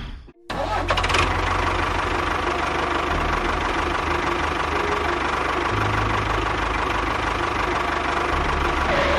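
A small engine running steadily with a fast, even knocking rhythm, just after an abrupt cut in the sound.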